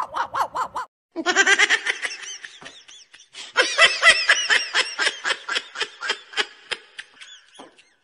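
A man's yappy small-dog impression for under a second, then high-pitched laughter in two long runs of quick, rising-and-falling cackles, fading near the end.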